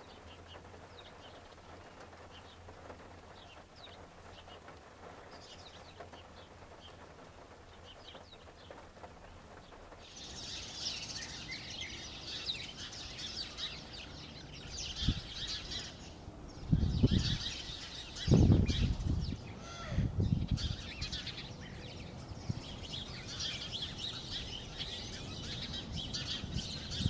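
Small birds chirping and twittering in repeated bursts, starting about ten seconds in after a faint, near-quiet start. A few dull low thumps about two-thirds of the way through are the loudest sounds.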